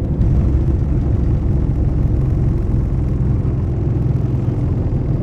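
Steady loud rumble inside an airliner's cabin as it rolls at speed down the runway on its takeoff run: jet engines at high power together with the wheels on the runway.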